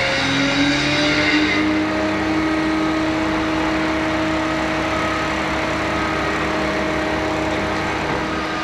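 Mobile crane's diesel engine revving up and holding steady under load as the crane hoists a skip container on its hook. The engine note rises slightly about half a second in, and a high hiss drops away a little later.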